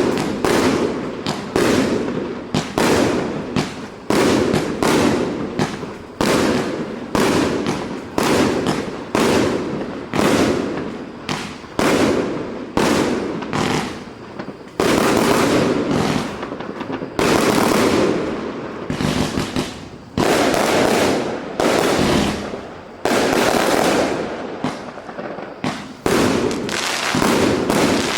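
Fireworks battery ("Город Солнца" PKU3601 cake) firing shot after shot, about one a second, each a sudden bang that trails off. In the second half the shots come in longer, denser runs.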